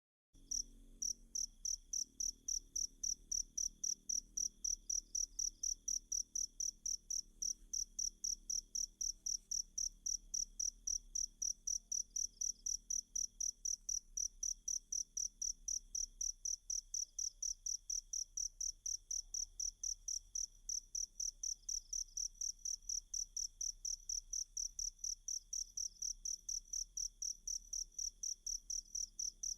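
Cricket chirping in a steady, even rhythm of about three high-pitched chirps a second, starting about half a second in after silence.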